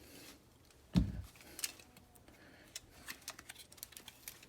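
Seat belt retractor mechanism being handled: one solid knock about a second in, then scattered light clicks and ticks of plastic and metal parts.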